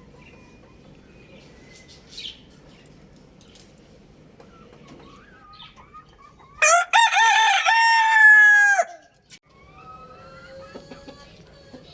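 Rooster crowing once, loudly, about two-thirds of the way in: a few short broken notes, then a long held note that drops off at the end.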